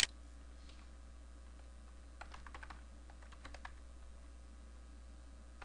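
A single sharp mouse click at the start, then light typing on a computer keyboard in two short runs of keystrokes, about two seconds and three and a half seconds in.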